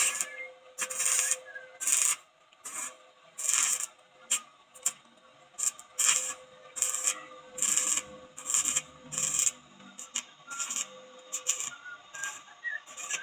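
Mini welding machine being tested: a string of short hissing, crackling bursts at irregular spacing, a few each second, over a steady hum.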